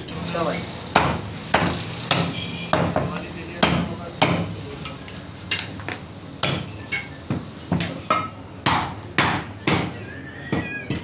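A butcher's cleaver chopping mutton on a wooden chopping block: a run of sharp chops at an uneven pace, about one or two a second.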